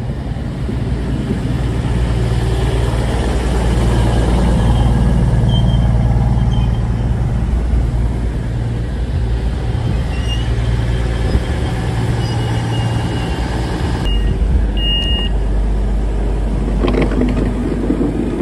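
Grand Central Class 221 Voyager diesel multiple unit pulling into the platform and coming to a stand, its underfloor diesel engines running with a steady low drone. A short high beep sounds about fifteen seconds in, and there is some clatter near the end as the door opens for boarding.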